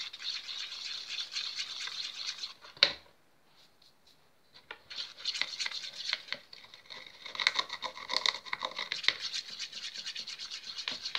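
A stick stirring and scraping glitter into clear glue in a bowl, rapid scratchy strokes. There is a sharp click near three seconds in, then a pause of about a second and a half before the stirring starts again.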